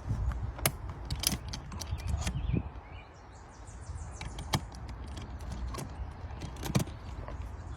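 Irregular light clicks and knocks from hands handling the small geocache container and its log, over a steady low rumble.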